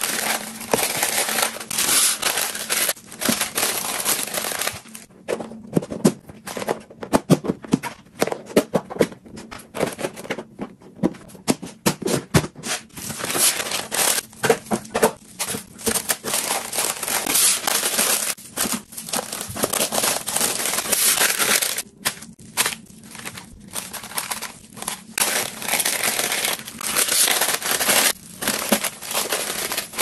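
Paper and disposable plastic gloves crinkling as gloved hands fold and tuck white paper sheets around meat in plastic storage boxes. The crinkling comes in bursts with short pauses and many small sharp crackles.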